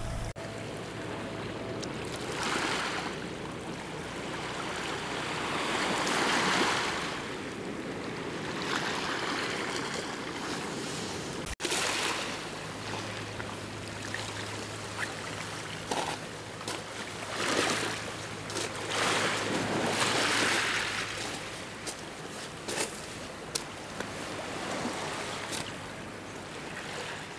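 Small sea waves lapping and washing over a pebble beach, the wash swelling and fading every few seconds, with a few light clicks of stones.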